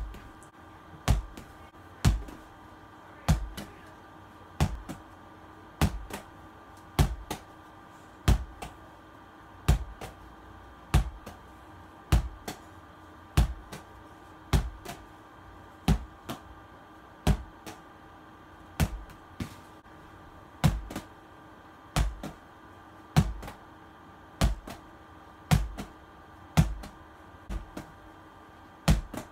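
A small ball thrown against a wall again and again, each throw landing with a sharp thud, steadily about once every second and a bit.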